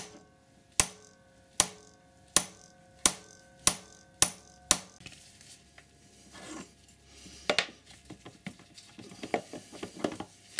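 Whale chain riveter being worked with a spanner to stake a solid rivet on a motorcycle drive chain. Over the first five seconds come about eight sharp metallic clicks, each ringing briefly, about three every two seconds. Then there are scattered light clinks and rattles, with a louder clank partway through.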